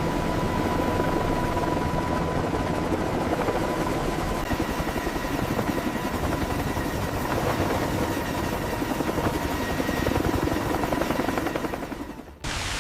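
Steady, fast-chopping rotor noise like a helicopter's, cutting off suddenly near the end.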